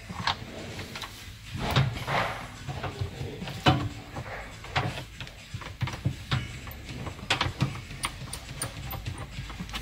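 Small metal clicks and taps as a nut is turned by hand onto a T-bolt and the bracket is settled against the aluminium rail, coming irregularly, a few to a second.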